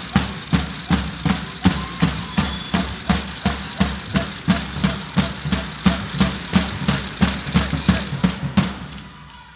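Fans drumming a steady beat on a cheering drum, about two and a half strokes a second, over general crowd noise. The drumming stops about a second before the end.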